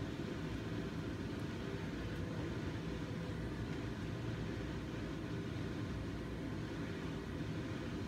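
Gas stove burner running under a frying pan, a steady low rushing noise that does not change.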